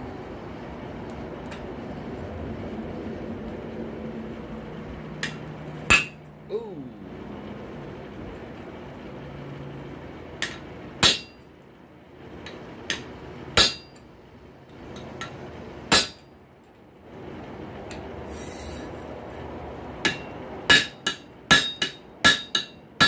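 Hand hammer striking a square punch to drive a hole through a hot steel rail spike on an anvil, each blow ringing. Single blows a second or so apart at first, then a quick run of about eight strikes near the end.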